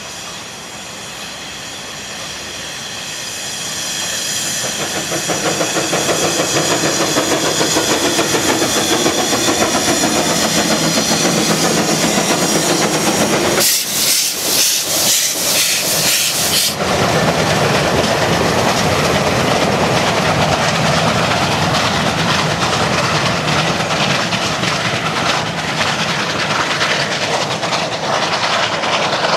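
Narrow-gauge steam train passing close by, growing louder over the first few seconds as the locomotive approaches. About halfway through, a loud hiss of steam escapes at the locomotive's cylinders for about three seconds as it goes by. The coaches then roll past with a steady clatter of wheels on the track.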